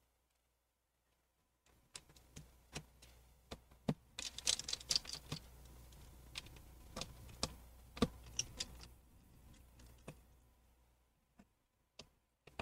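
Precision screwdriver clicking and scraping on the tiny Wi-Fi antenna screws and metal frame of a MacBook Pro: irregular small sharp clicks, busiest in the middle, over a faint low hum.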